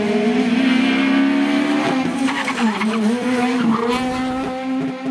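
Peugeot 208 rally car's engine running hard at high revs as it passes. The pitch dips about two and a half seconds in as it comes off the throttle and changes down, then holds steady.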